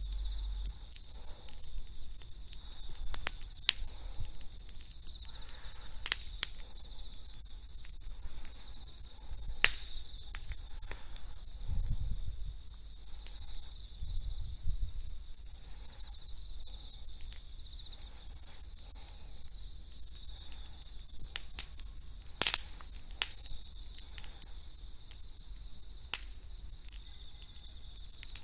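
Crickets trilling steadily at night over a wood campfire crackling, with a scatter of sharp pops from the burning wood, a few of them much louder than the rest.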